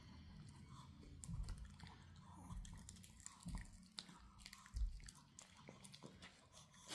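Pomeranian puppy chewing on a dog chew: faint, irregular clicks and crunches of teeth gnawing the chew.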